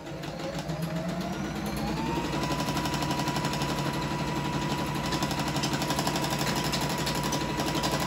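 Singer Fitline 6280 sewing machine starting to sew a straight stitch. Its motor whine rises in pitch over about two seconds as it speeds up, then holds steady over a fast, even needle rattle.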